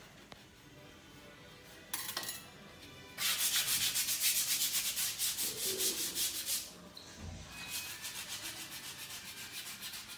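A paintbrush scrubbed rapidly back and forth against a wall, a fast, even rhythm of scratchy strokes. It starts loud about three seconds in, drops off a few seconds later, then carries on more lightly near the end.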